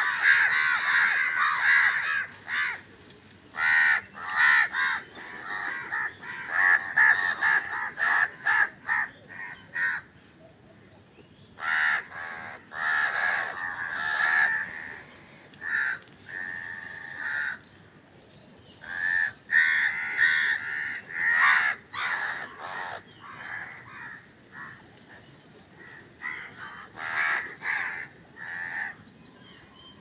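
A group of house crows cawing: a dense run of overlapping caws at the start, then bursts of harsh caws with pauses of a second or two between them.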